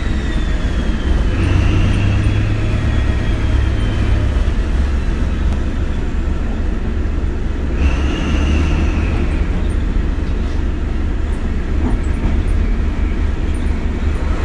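Diesel engine of prototype HST power car 41001, a Paxman Valenta, running with a loud steady low rumble. A high whine swells and fades near the start and again about halfway through.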